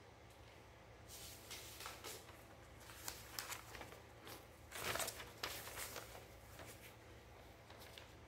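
Sheet of paper rustling as it is handled and held up, in irregular bursts, loudest about five seconds in.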